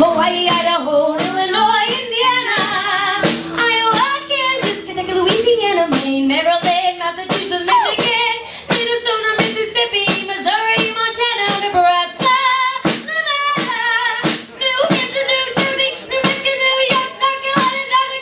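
Live band playing a punky bluegrass-style song: a woman singing lead over strummed acoustic guitar and a steady snare drum beat.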